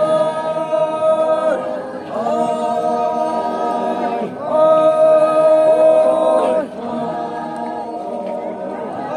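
A group of men singing together in unison without instruments as they walk in procession: long held notes in four phrases of about two seconds each, every phrase ending in a downward slide.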